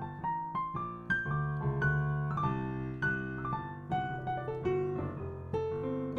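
Piano playing a jazz ii–V–I in F (Gm7–C7–Fmaj7). Held left-hand chords sit under a quick right-hand single-note line, which climbs in the first second and spells a D major triad over the C7 for a sharp-11 and 13 sound.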